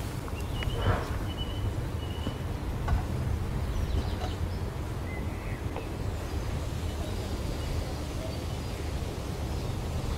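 Outdoor ambience: a steady low rumble with a few faint bird chirps now and then.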